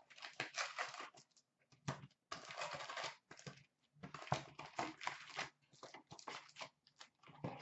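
A cardboard tear strip being ripped off a hockey-card hobby box, heard as several rough tearing and rustling bursts about a second long with short pauses between them.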